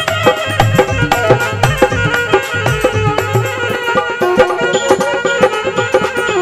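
Instrumental interlude of Rajasthani folk devotional music: a saxophone plays a busy ornamented melody over a fast hand-drum rhythm with other percussion.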